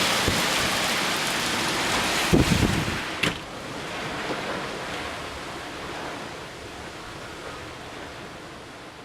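Typhoon rain and wind, a steady rush with gusts rumbling against the microphone in the first three seconds. A click about three seconds in, after which the rush is quieter and fades away.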